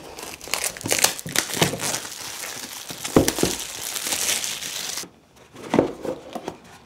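Clear plastic shrink wrap crinkling and tearing as it is peeled off a cardboard product box. The crackling stops about five seconds in and is followed by a light knock as the box is handled.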